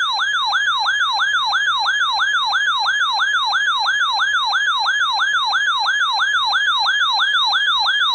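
Electronic weather-alert siren: a loud, fast warbling tone sweeping up and down about three and a half times a second without a break. It is the alarm that announces a weather warning broadcast.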